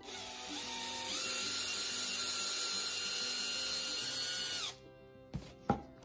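Cordless Makita drill boring into a small wooden bird-head blank held in a drill guide block: a steady motor whine that climbs in speed over the first second, holds, and winds down at about 4.7 s. Then two sharp knocks, the second the loudest, as the drill is set down on the table.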